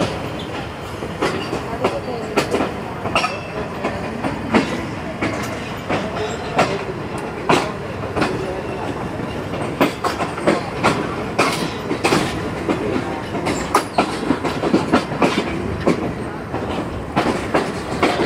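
Railway coach rolling slowly through a station yard, heard from on board: a steady rumble of the wheels on the rails, broken by irregular sharp clacks and knocks as the wheels cross rail joints and points.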